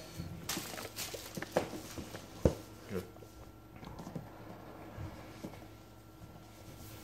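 A cardboard laptop box being handled and opened on a wooden floor: scattered light taps and knocks, the sharpest about two and a half seconds in.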